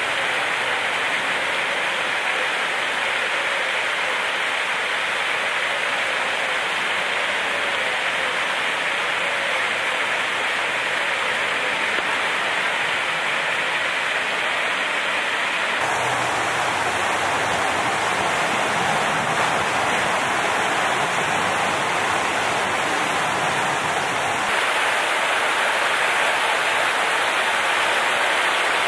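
A steady rushing noise with no separate events in it. Its character changes suddenly about 16 seconds in and again near 25 seconds.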